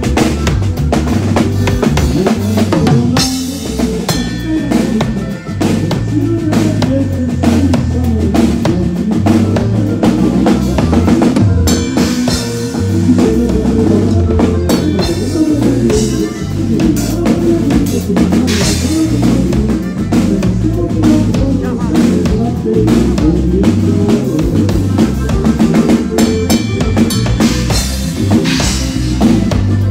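Live band playing an instrumental dance number: a button accordion over a drum kit with a heavy low end, loud and steady.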